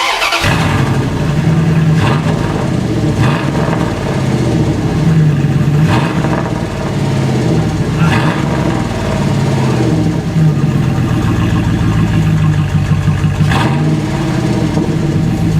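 5.9-litre (360 ci) Dodge V8 running loud through a straight pipe with the muffler removed, revved in several short blips over a steady idle.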